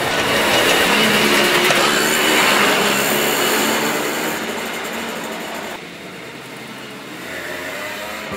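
Simson Schwalbe scooter's 50 cc single-cylinder two-stroke engine buzzing, loudest in the first few seconds and then fading, dropping suddenly to a quieter level about six seconds in.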